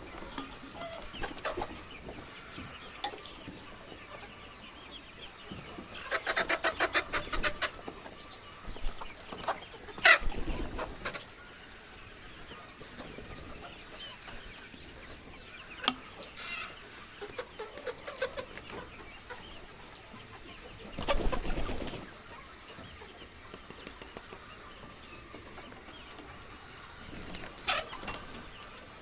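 Laying hens clucking and calling. A run of quick clucks comes about six seconds in, a single loud sharp call follows about ten seconds in, and there is a short noisy burst about two-thirds of the way through.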